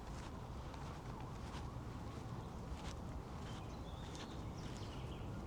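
Footsteps of a person walking at an easy pace, over a steady low hum of distant city traffic. A few faint high bird chirps come in around the middle.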